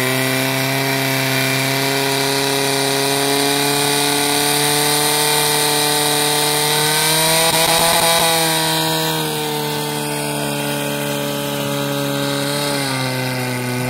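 Portable fire pump's engine running at high revs under load, driving water through the attack hoses. Its pitch holds steady, lifts a little about seven seconds in, then drops as it is throttled back near the end.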